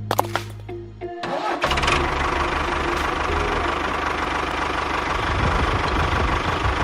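A mini tractor's engine starts about a second in, as the music cuts off, and then runs steadily with a rough, rhythmic chug.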